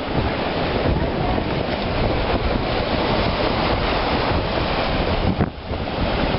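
Wind buffeting the microphone over moving water full of broken ice floes going out on the high tide, with a brief lull about five and a half seconds in.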